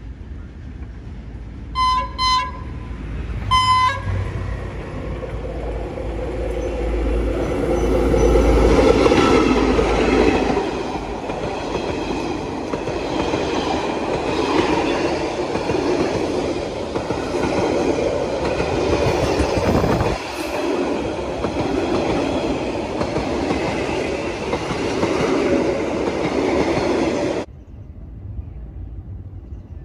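Diesel locomotive sounding three short horn blasts, then running past close by with a loud low rumble, followed by a string of passenger coaches rolling by on the rails. The sound cuts off abruptly near the end.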